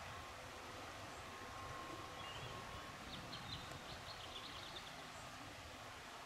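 Faint outdoor ambience: a low, steady rumble with a faint hum, and a small bird singing a brief, quick trill of chirps about two and a half seconds in.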